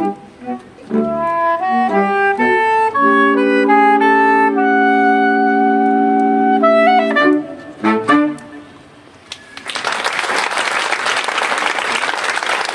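Saxophone quartet playing a run of short notes into a long held chord, then a few short closing notes that end the piece. A short pause follows, then the audience applauds, which is the loudest part near the end.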